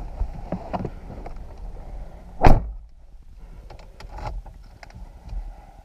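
Car driver's door slammed shut with one loud thud about two and a half seconds in, after the rustle and knocks of someone getting into the seat. A few light clicks and knocks follow inside the now closed cabin.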